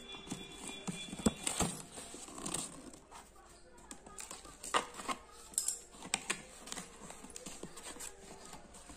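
Cardboard shipping box being opened by hand: a blade slitting the packing tape, with scattered sharp taps, scrapes and rustles of cardboard as the flaps are pulled apart and the inner box is slid out.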